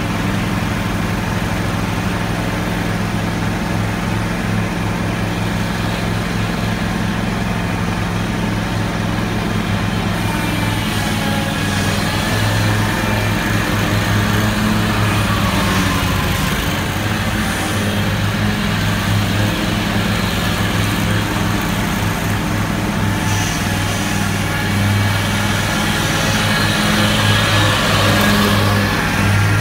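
A 61-inch Scag Cheetah zero-turn mower's 34 hp engine running steadily while mowing grass. It grows louder near the end as the mower passes close.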